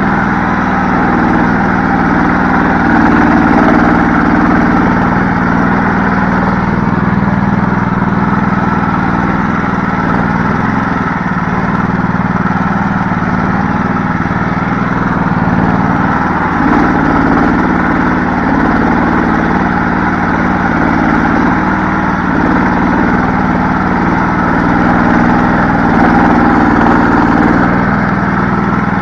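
Karakat's engine running steadily and loud, with small shifts in pitch.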